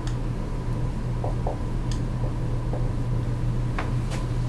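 A steady low background hum with a faint thin steady tone above it, and a few soft ticks scattered through it.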